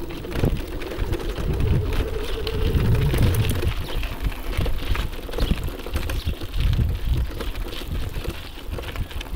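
Wind buffeting the microphone in irregular gusts, over a steady crackling hiss.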